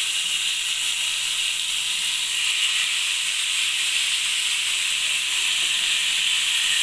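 Marinated chicken skewers sizzling in hot melted butter in a frying pan, a steady hiss.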